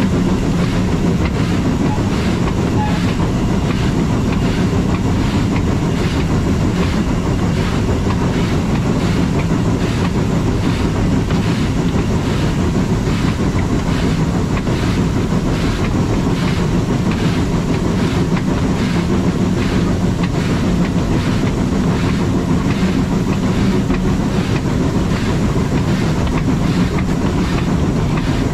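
Metre-gauge steam train running steadily on the rack-and-pinion section of the Furka mountain line, with a regular, evenly spaced beat over a continuous low rumble.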